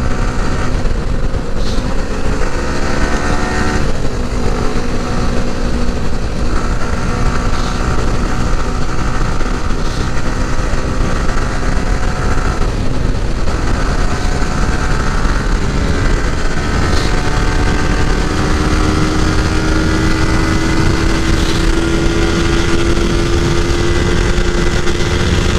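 Motorcycle engine running hard at road speed during a race, its pitch wandering with the throttle and rising slowly over the last few seconds as it accelerates, over a steady rush of wind on the microphone.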